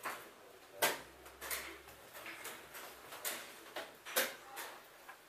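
A few sporadic sharp clicks and knocks, the loudest two about a second in and about four seconds in.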